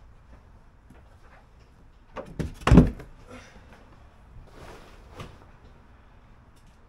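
A couple of quick knocks followed by one loud, heavy thump about two and a half seconds in, then a few lighter scuffing and handling noises.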